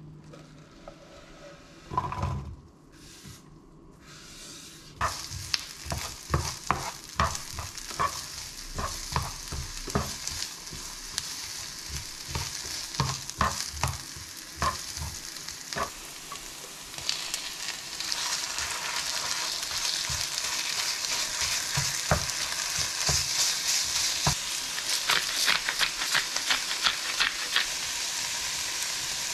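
Chopped onion, and later onion with ground beef, sizzling in oil in a nonstick frying pan, with a spatula clicking and scraping against the pan as it is stirred. A thump about two seconds in. The sizzling grows louder and steadier a little past halfway.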